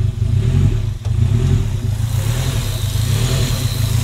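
Straight-piped, turbocharged K24/K20 four-cylinder of a 2002 Acura RSX idling cold with a deep, uneven burble, the rough cold idle that tends to let it stall. About halfway through, the engine's hiss and a faint high whine grow brighter as the hood comes open.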